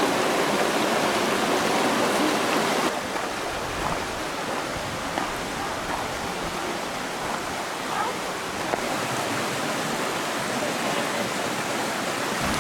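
Steady rushing noise of flowing stream water, dropping a step in level about three seconds in.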